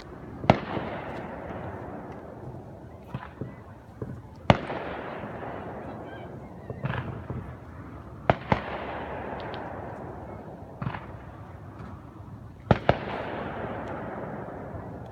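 Fireworks bursting overhead one after another: a string of sharp bangs, some in quick pairs, each trailed by a hissing crackle that fades over a few seconds.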